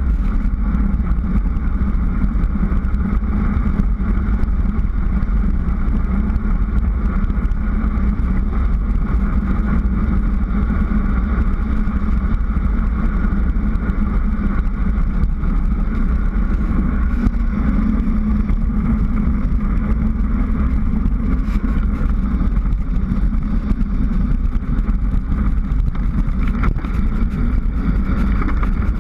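Steady wind rumble on a bike-mounted GoPro's microphone during a fast bicycle descent on asphalt, with tyre noise from the road.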